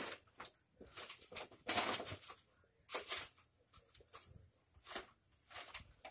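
Paper wrappers and plastic bags rustling and crinkling in several short bursts, about one a second, as a cat roots through them and pulls out a wrapper.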